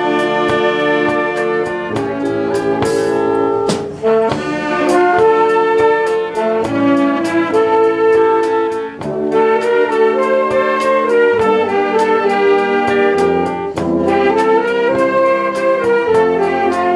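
Concert wind band of brass and saxophones, with a tuba on the bass, playing a slow melodic arrangement in sustained chords.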